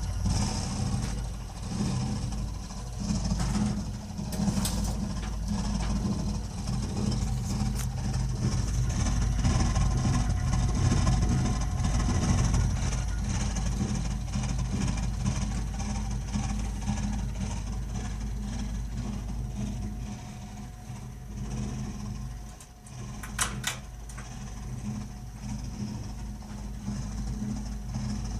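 Burnham Alpine ALP150W gas-fired boiler running with a steady low drone, the strange noise the owner hears it make frequently and cannot explain. A short sharp click sounds near the end.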